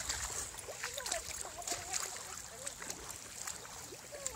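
Quiet outdoor ambience: faint distant voices talking, over a low rumble on the microphone.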